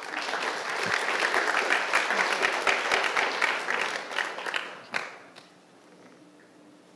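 Audience applauding. The clapping starts at once and dies away after about five seconds, and a single sharp knock comes as it ends.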